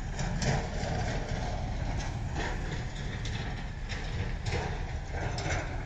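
Diesel earthmoving machinery, a CAT excavator and a tractor, running steadily with a few scattered knocks.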